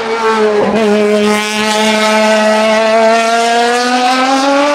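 Osella PS20 sports prototype's engine at high revs under full throttle on a hillclimb. There is a quick gearshift just under a second in, then the revs climb steadily through the next gear.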